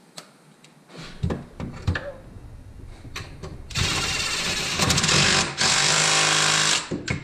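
DeWalt cordless driver spinning a socket to run down the nuts on a Miata rear strut's top mount, in two runs of a second or more each, with a short break between them. Before it, a few knocks as the socket is fitted onto the nut.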